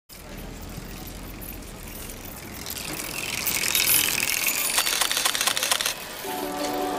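Bicycle passing close: tyre hiss swells, and its freewheel ratchet clicks rapidly about five seconds in as the rider coasts, cutting off suddenly near the end, where music comes in.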